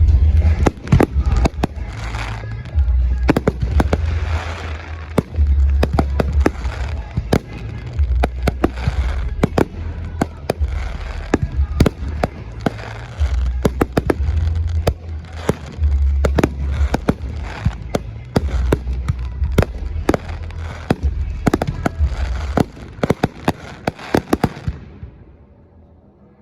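Aerial fireworks bursting in rapid succession: many sharp bangs with deep booms underneath and crackle between them. The barrage dies away about 25 seconds in.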